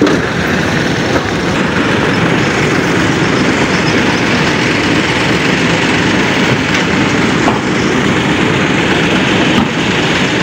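Pickup truck engine running steadily with a loud, even rumble.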